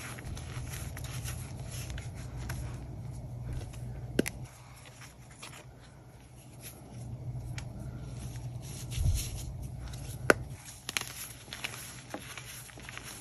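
Blocks of Pro Source gym chalk coated in iron oxide being squeezed and crumbled by hand, a steady crunchy crackling. Two sharper snaps come about four and about ten seconds in, and a dull thump comes just before the second.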